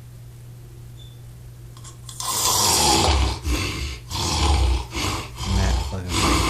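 Loud snoring that starts about two seconds in, several snores in quick succession, over a low steady hum.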